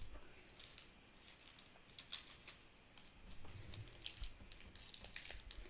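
Faint scattered clicking and light crinkling of small plastic slime add-ins and packaging being handled, the clicks coming more often in the second half.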